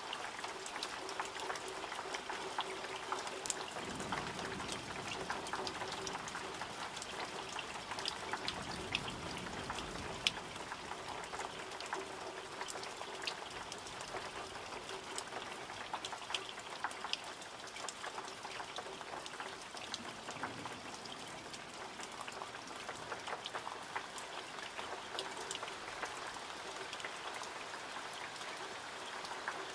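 Steady rain falling, with many separate drops striking nearby surfaces in quick, uneven clicks over a constant hiss.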